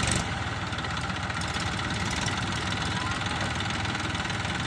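Farm tractor's diesel engine running steadily under load as it hauls a trolley full of sugarcane through a soft, rain-soaked field.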